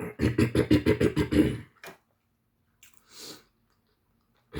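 A person's voice in a rapid run of short pulses, about seven a second, for about a second and a half, followed by a brief breathy noise near the end.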